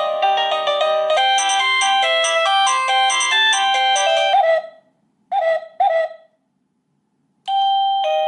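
Alierkin wireless doorbell chime receiver playing its built-in ringtones one after another. An electronic melody ends about four and a half seconds in, two short tones follow, and after a brief pause a two-note ding-dong chime begins near the end.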